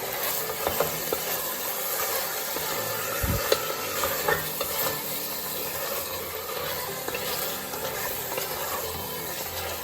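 Chicken frying with spices and curd in an open pressure cooker, sizzling steadily while being stirred, the spoon scraping and clicking against the pot. One low thump about three seconds in.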